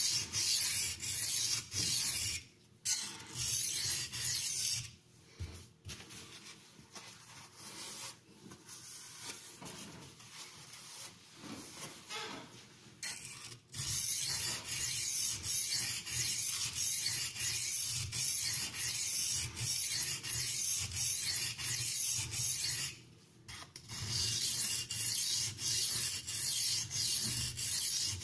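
Carbon-steel knife blade stroked back and forth on an oiled Norton India Fine oilstone: a hissing scrape repeated in quick even strokes, several a second. The strokes go lighter and quieter for several seconds after a brief pause near the start, then pick up again, with another short pause near the end.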